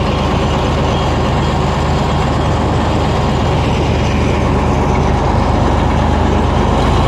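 A heavy vehicle engine running steadily at a low, even pitch.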